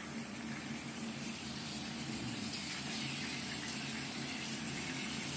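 Fish heads frying in hot oil in a stainless steel kadai: a steady sizzle, with a couple of faint clicks.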